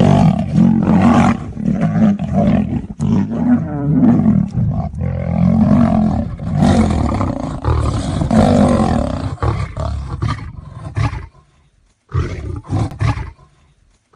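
Big cats roaring and growling over and over in deep, rough calls, breaking off about eleven seconds in, with a few short calls after.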